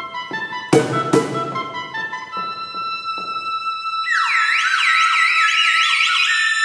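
Oboe playing sustained notes, with two sharp percussion strikes about a second in. From about four seconds a whistle blown by the percussionist joins in, its pitch wavering rapidly up and down above the oboe.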